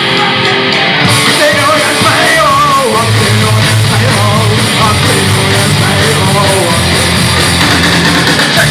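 Rock band playing loud and live, a wavering, bending melody line riding over steady bass and drums.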